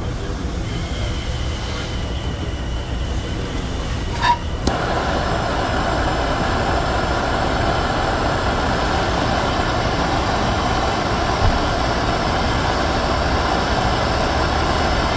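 A handheld gas torch is lit with a sharp click about four seconds in, then hisses steadily as its flame heats the spade tip of a plastic-welding iron. A low steady hum runs underneath.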